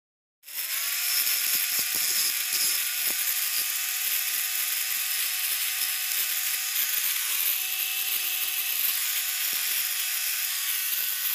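Angle grinder running at speed, its abrasive disc grinding down a lead battery terminal post to resurface it: a steady whine over a harsh grinding hiss. It starts abruptly about half a second in.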